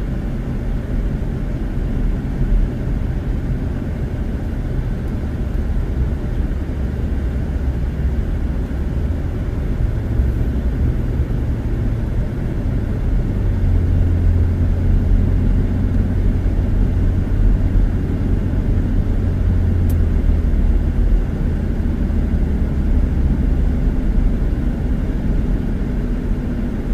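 Road noise of a car being driven, heard from inside the cabin: a steady low rumble of tyres and engine. A deeper drone strengthens about halfway through and fades a few seconds before the end.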